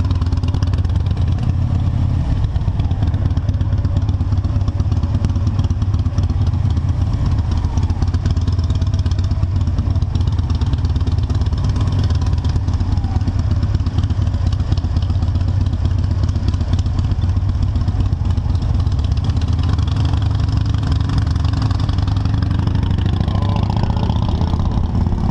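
Motorcycle engine running under way, heard from a camera mounted on the bike itself: a steady low drone with a rising engine note near the end.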